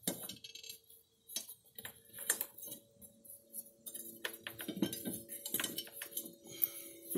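Scattered light clicks and small metallic clinks of handling, with a faint steady hum underneath.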